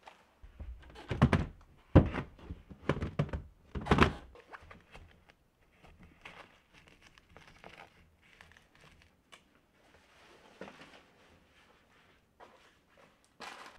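Household storage things being handled: several heavy thunks in the first few seconds, then softer rustling and handling as a fabric hanging organizer is fitted onto a wire closet shelf. One more sharp knock comes near the end.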